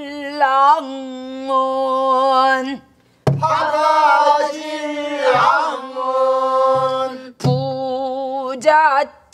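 Pansori singing in slow jinyangjo rhythm: one voice holds a long, wavering note, then the class sings the line back together a little after three seconds in. A few strokes on buk barrel drums fall between the notes.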